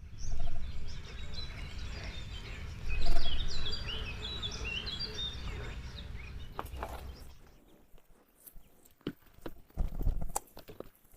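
A small songbird chirping in quick runs of short notes over a low rumble. The rumble fades in the second half, leaving a few scattered clicks and knocks.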